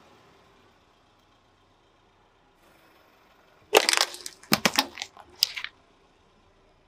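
Car tyre rolling over a small can packed with candies and crushing it: a burst of sharp cracks and crunches starting about four seconds in and lasting about two seconds.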